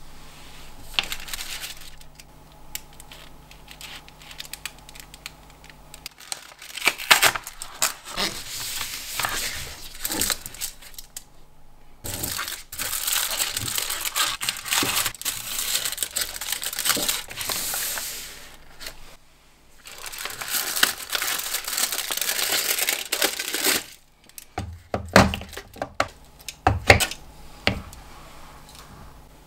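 A chocolate bar's paper wrapper and gold foil crinkling and tearing as they are opened, in long rustling stretches. Near the end come several sharp snaps and knocks as the dark chocolate is broken and the pieces are set down on a metal kitchen scale.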